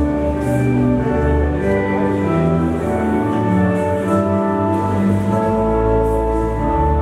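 Slow instrumental background music: held notes over a low bass line that changes every second or so.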